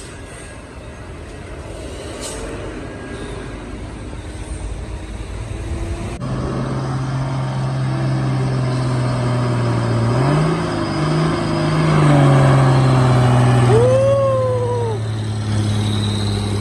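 Diesel engines of heavily loaded sugarcane trucks labouring up a sharp bend under heavy load, running louder from about six seconds in, with the engine note rising as a truck accelerates. There is a brief rising-and-falling whistle-like tone near the end.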